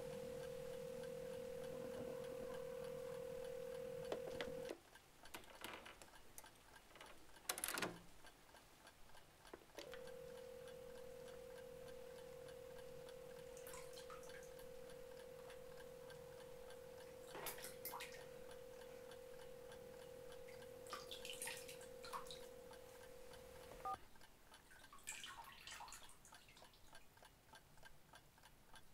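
Landline telephone dial tone, a steady single tone from the handset. It cuts off about five seconds in, comes back about ten seconds in and stops near the end, with sharp clicks of the handset and its buttons in between.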